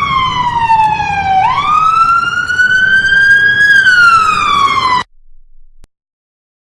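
A loud wailing siren, standing for the school fire alarm: one pitched tone that slowly falls, sweeps back up, then starts falling again before cutting off suddenly about five seconds in.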